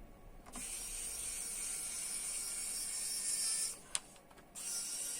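Small electric screwdriver running as it drives the laptop's processor heatsink screws, stopping with a click and starting again on the next screw near the end.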